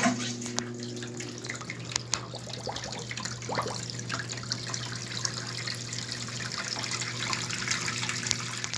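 Water gushing from an Electrolux LBU15 washing machine's corrugated drain hose and splashing into a laundry sink, with a steady low hum from the drain pump underneath. The flow shows the drain pump now switched properly by the repaired control board.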